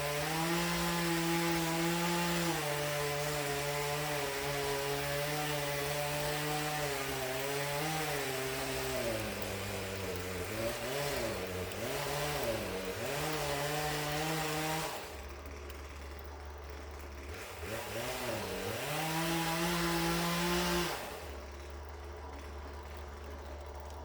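Poulan P3314 two-stroke chainsaw running at full throttle while cutting wood, its revs sagging and recovering under load. About 15 s in it drops to a low idle, revs up once more for a few seconds, then settles back to idle.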